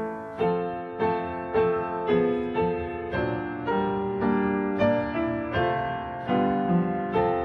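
Slow piano music: single struck notes and chords about two a second, each ringing and fading before the next.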